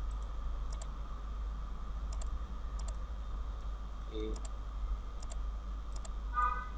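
Computer mouse button clicking, a scattering of sharp clicks about one every half second to second, over a steady low hum.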